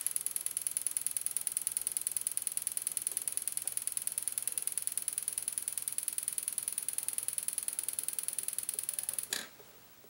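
A high-pitched electronic tone pulsing rapidly and evenly, which cuts off abruptly about nine seconds in.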